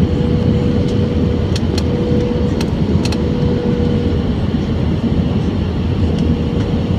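Airbus A320 cabin noise on approach, heard from a window seat beside the wing: the steady loud rush of the engines and airflow with a steady mid-pitched hum through it. A few faint clicks come in the first half.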